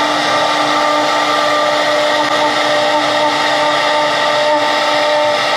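CNC router spindle running at speed while its small carving bit cuts a relief into wood. It makes a steady whine of several tones over a constant hiss of cutting.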